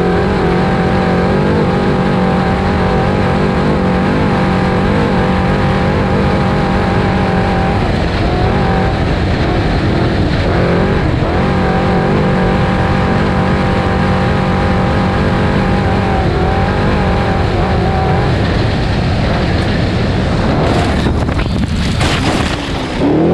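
Desert-racing trophy truck's engine running hard at a steady high pitch, heard from inside the cab, easing off briefly twice. Several sharp knocks and rattles come in the last few seconds.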